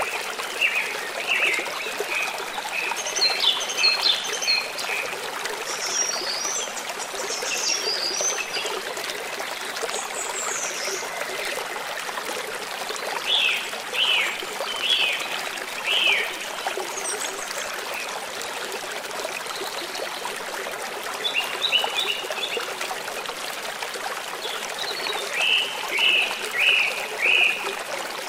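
Gentle river flowing steadily, with birds chirping over it in short runs of several calls that come and go.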